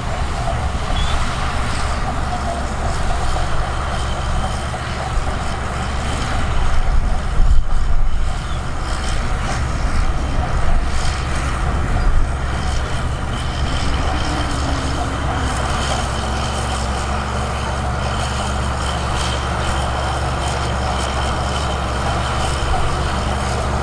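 Heavy diesel earthmoving machinery running steadily under load, with a few louder surges about a third of the way in.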